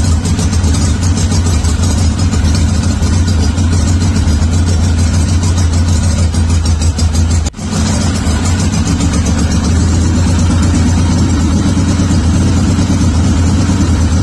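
Harley-Davidson Sportster ironhead V-twin engine running steadily at idle, loud and low, with a momentary break about halfway through.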